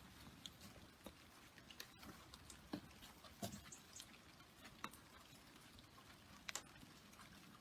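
Faint, scattered rustles and small clicks of soil being worked by hand while digging up potatoes.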